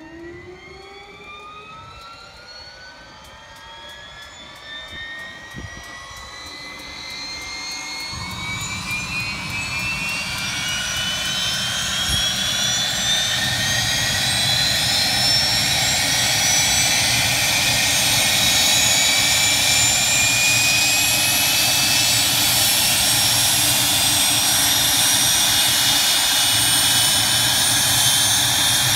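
Cessna Citation 501 turbofan jet engine starting up: a whine of several tones rises steadily in pitch as the engine spools up. A low rumble comes in suddenly about eight seconds in, and the sound grows louder until it levels off into a steady run.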